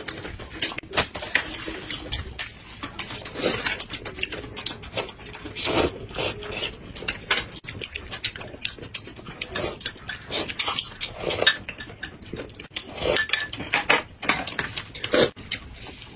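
Close-miked eating sounds: chewing, lip smacking and slurping of rice noodles and flatbread, in quick irregular smacks and clicks with a few longer slurps.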